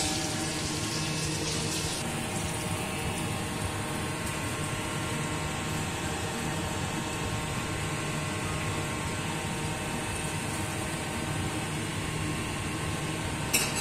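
Fish cakes sizzling as they shallow-fry in hot oil in a pan, over a steady background hum.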